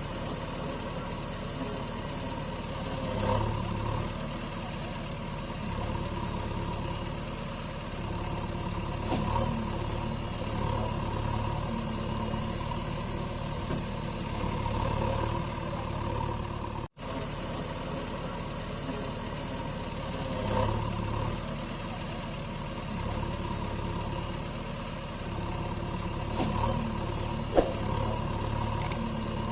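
Truck engine running steadily at idle, swelling a little now and then, with a momentary dropout about 17 seconds in.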